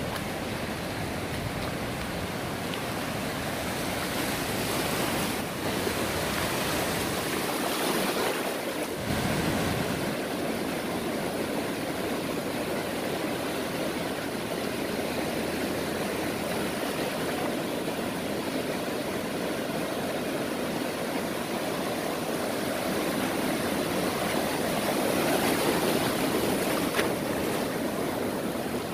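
Ocean surf: lines of waves breaking and washing in over the shallows, a steady rushing wash that grows a little louder near the end.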